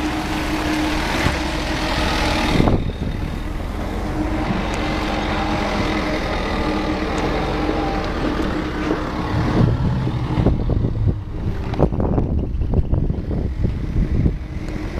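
Forklift engine running steadily. A sharp knock comes a little under three seconds in, and irregular knocks and rumbles cover the last few seconds.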